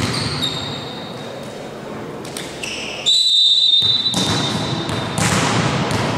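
Volleyball match in a sports hall: short shoe squeaks and thuds on the court floor, then, about halfway through, a loud steady high whistle held for about two seconds.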